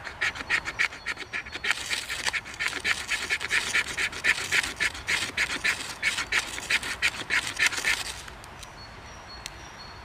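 Ferro rod being struck hard with a scraper to throw sparks onto tinder: a fast, even run of harsh rasping strokes that stops about eight seconds in.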